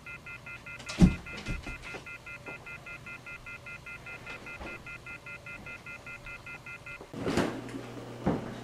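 Telephone handset giving a fast pulsing multi-tone beep, about five beeps a second, the off-hook warning of a phone line left with no call. It is faint, with the handset away from the ear. A loud thump about a second in and a few lighter knocks sound over it. The beeping stops abruptly near the end, followed by a short rush of noise and a click.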